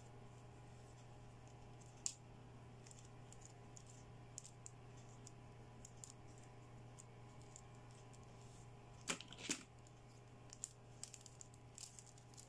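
Light clicks and taps of hard plastic toy eyeglasses being handled and knocked against each other. There is a sharp click about two seconds in and a cluster of louder clicks about nine seconds in, over a faint steady hum.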